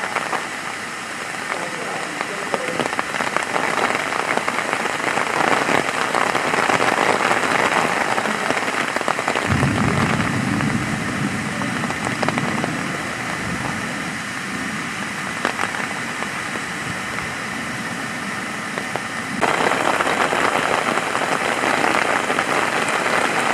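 Steady rain falling, an even hiss. A low rumble joins it for a few seconds about ten seconds in, and the rain grows louder near the end.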